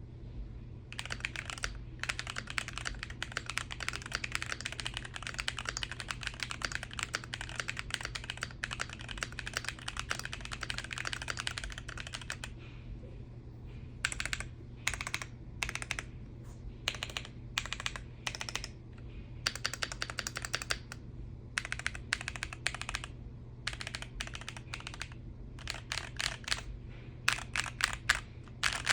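Custom-built Keychron Q1 aluminium-cased mechanical keyboard being typed on: a fast, continuous run of keystrokes for about twelve seconds, then short bursts of typing with brief pauses between them.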